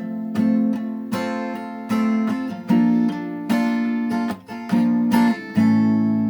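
Acoustic guitar playing an instrumental tune: chords struck with sharp attacks and left ringing, a new chord every second or so.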